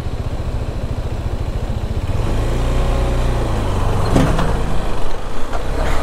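KTM 390 Adventure's single-cylinder engine running at low road speed as the bike slows. A truck passes close by in the opposite direction about halfway through, its engine note joining in, with a brief clatter just after four seconds in.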